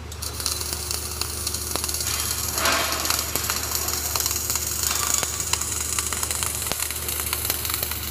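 Flux-cored arc welding: the arc strikes at the start and runs with a steady crackling hiss full of fine spatter pops, over the low hum of the welding machine.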